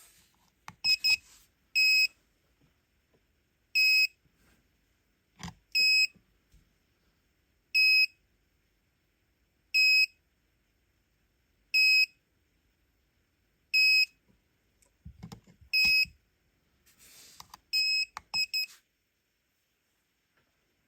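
Piezo buzzer of a DIY T12 STC soldering station controller beeping. First two quick high beeps, then single beeps about every two seconds, then three quick beeps near the end. Faint clicks and handling noise fall between the beeps.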